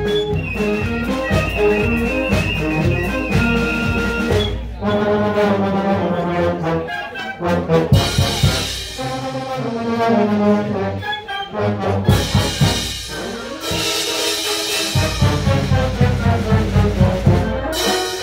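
Concert band of brass and woodwinds playing live, sustained notes and chords moving over a steady low beat.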